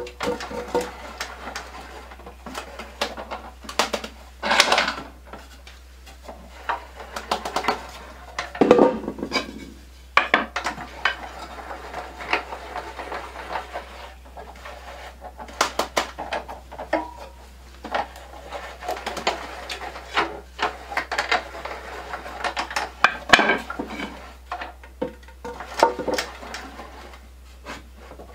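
The metal crank handle and screw of a homemade wooden leg vise are turned by hand, clinking, rattling and knocking irregularly, with a couple of longer scraping rubs early on, over a steady low hum.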